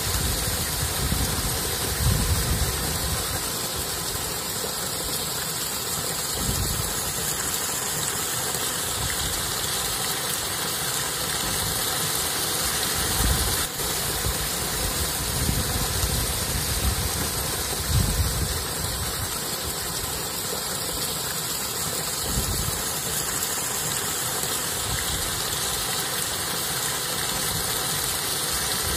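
Wind gusting on the microphone in irregular low rumbles, over a steady outdoor hiss.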